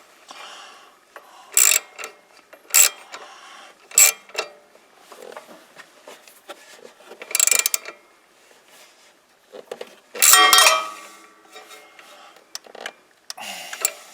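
A 12 mm socket wrench tightening the nut on a tractor's pedal safety-switch bracket: a series of separate sharp metallic clicks, with a longer run of clicking and clatter about ten seconds in.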